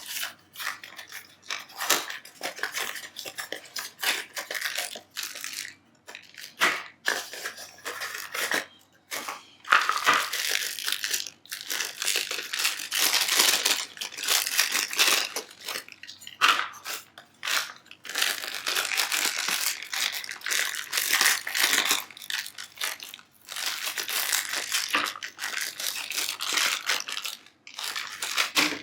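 Product packaging being handled and opened: irregular rustling and crinkling with sharp clicks and knocks, sparse at first and near-continuous through the second half.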